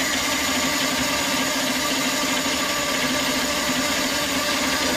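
Chainsaw engine running steadily at a constant pitch while its bar is in a large log, sawing through it.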